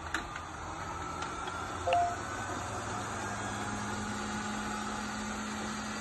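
ANOA X750 robot vacuum running in its standard cleaning mode: a steady hum of its suction fan and brushes. There is a click at the start and a short, louder blip about two seconds in, and a deeper hum sets in about three seconds in.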